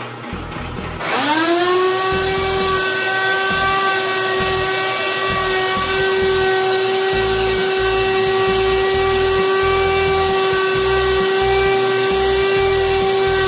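Stainless-steel high-speed electric grinder (pulverizer) spinning up about a second in, its pitch rising quickly, then running at a steady high-pitched whine over a rushing noise as it grinds the defatted cacao left after pressing out the cocoa butter into cacao powder.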